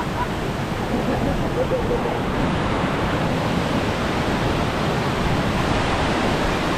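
Multnomah Falls pouring with a heavy flow, a steady, loud rush of falling water with no breaks.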